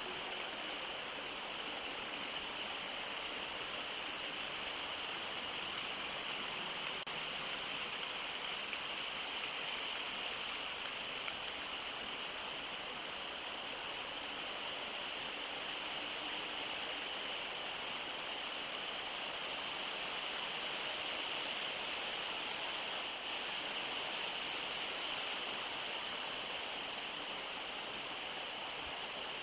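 Steady outdoor ambient hiss, even throughout and strongest in a high band, with a few faint high chirps in the second half.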